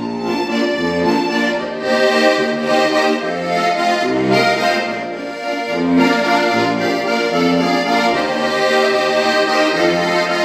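Slovenian diatonic button accordion (frajtonarica) played solo: a melody on the treble buttons over a regular pulsing bass from the bass buttons.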